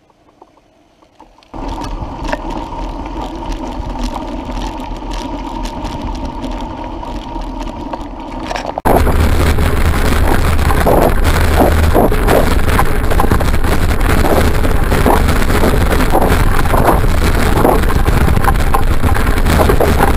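Mountain bike ridden along a forest dirt trail, heard through a bike-mounted action camera: heavy wind buffeting on the microphone, a low rumble and irregular knocks and rattles as the bike goes over rough ground. It starts suddenly about nine seconds in and is the loudest sound. Before it, after a near-quiet start, comes a steadier rolling noise with a hum.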